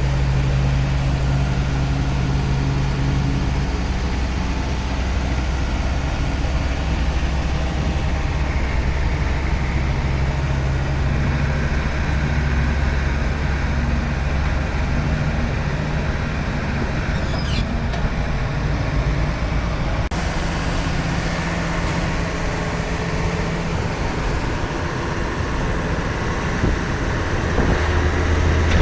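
Land Rover Defender's 2.5-litre 19J diesel engine running steadily as the truck drives, a continuous low drone. The engine note changes about two-thirds of the way through and rises near the end.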